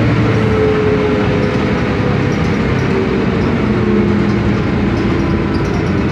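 The MAN D2866UH six-cylinder diesel of a 1993 Sanos S215 city bus, heard from inside the passenger cabin while the bus drives along at speed: a steady, loud drone mixed with road and body noise.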